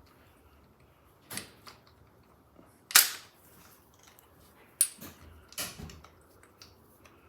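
A few sharp metal clacks and knocks from tools and brake parts being handled while working the rear brake caliper. The loudest comes about three seconds in, with lighter clicks around it.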